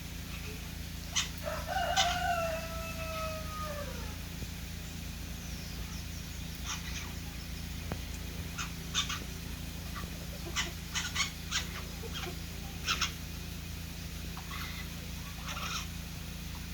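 Green jays calling: one drawn-out call that falls in pitch at its end about two seconds in, then a scatter of short, sharp calls, over a steady low hum.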